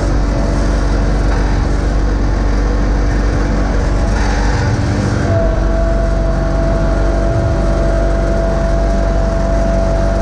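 John Deere X585 garden tractor engine running steadily while the tractor plows snow with its front blade. A steady whine joins about halfway through.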